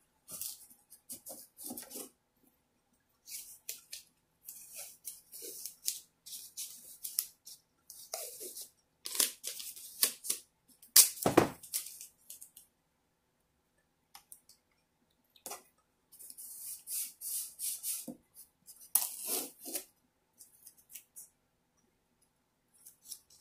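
Blue painter's masking tape being unrolled, torn and pressed down in strips by hand, in short bursts with quiet gaps between, the loudest about halfway through.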